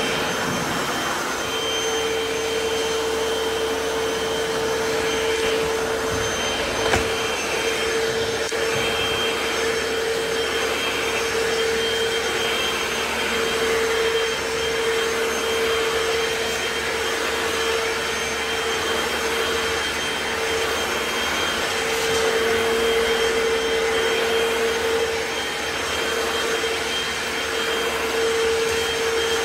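Hoover FloorMate wet hard-floor cleaner running steadily as it scrubs and sucks up water from a laminate floor: a steady motor hum and whine, with one sharp click about seven seconds in.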